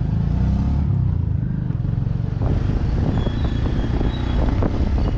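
Steady low rumble of a vehicle running along the road.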